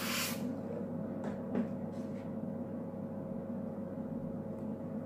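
Airbrush spraying nail tips with a hiss that cuts off a fraction of a second in, then a low steady hum with a few faint clicks.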